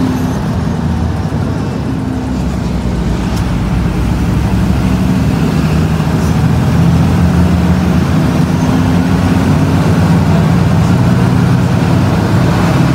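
Intercity bus's diesel engine heard from inside the front of the cabin, running steadily under way with a low drone that grows a little louder about halfway through.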